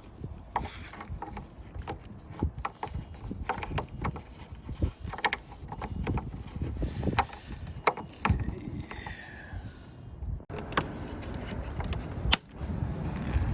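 Scattered clicks and light knocks of hard plastic parts of a vehicle lamp assembly being handled during a bulb swap. In the last few seconds there is a steady rush of wind on the microphone.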